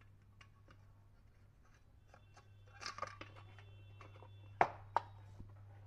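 Small clicks and scraping as the electric iron's plastic and metal parts are handled and fitted back together, with two sharp clicks a little past halfway, the first the louder.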